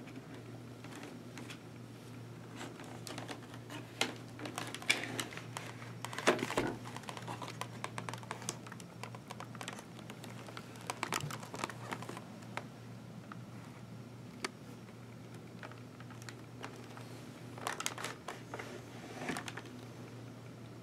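Handling noise as a Sena 10U microphone and control unit are pressed into a Schuberth C3 helmet's shell and padding: irregular small plastic clicks, taps and fabric rustling in clusters, over a steady low hum.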